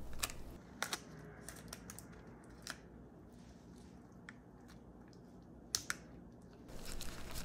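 Silicone spatula spreading thick brownie batter in a parchment-lined metal baking pan: soft scrapes and a few scattered light clicks against the pan and paper, with a denser rustle near the end.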